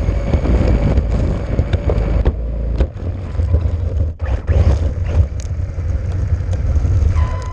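1:8 scale RC buggy driving, heard through a camera mounted on the car: a steady loud rumble with wind buffeting the microphone and scattered sharp knocks from the chassis over the ground, easing off near the end.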